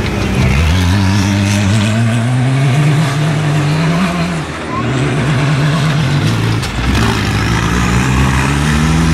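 Off-road race buggy engine accelerating hard, its pitch climbing through the revs and dropping back at gear changes, three pulls in all.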